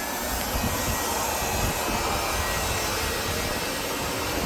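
Steady rushing noise, like air driven by a machine, with one sharp knock near the end.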